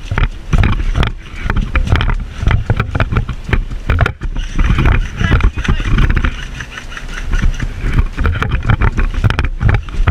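Irregular low rumble and rustling with scattered knocks, typical of wind and movement noise on a body-worn camera's microphone.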